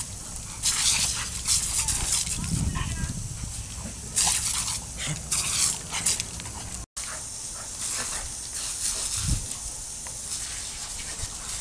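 Spray from a garden hose hissing and splashing on concrete in repeated bursts as dogs jump and snap at the stream, with short dog vocal sounds now and then.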